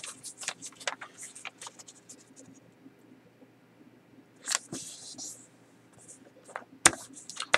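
Sheet of paper being folded by hand, a corner brought into the center and creased: a run of short crackling rustles, then a brief swish about halfway through and a few sharp crinkles near the end.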